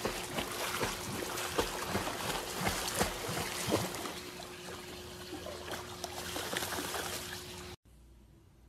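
Pool water splashing and lapping as a golden retriever puppy paddles across a swimming pool, with many small irregular splashes. The water sound cuts off suddenly near the end.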